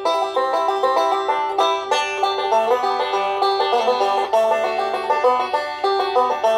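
Background music: an upbeat country tune of quick, plucked-string notes.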